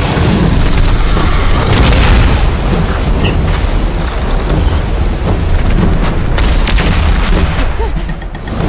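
Animated-combat sound effects of a magical energy clash: a loud, sustained explosion with deep rumbling booms and sharp cracks, easing briefly near the end.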